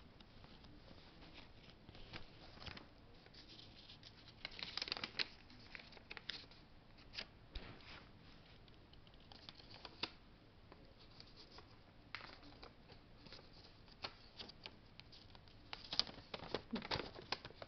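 Faint rustling and crinkling of paper as a folded note is worked open by hand, with scattered small clicks and a busier flurry of handling about five seconds in and again near the end.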